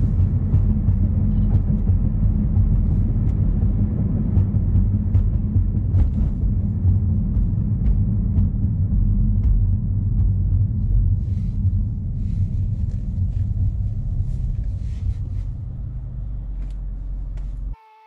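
2016 Chevrolet Malibu 2.0T's turbocharged four-cylinder running through a Borla axle-back exhaust with the resonator deleted: a low, steady exhaust drone while cruising. It grows quieter over the last several seconds as the car eases off toward a stop, then cuts off suddenly near the end.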